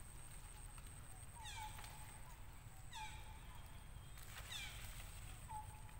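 Short high animal calls, three of them about a second and a half apart, each sliding quickly downward, with small softer chirps between them.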